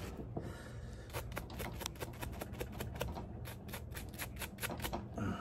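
Hands handling small steel bolts: a run of light, irregular clicks and rubbing, several a second.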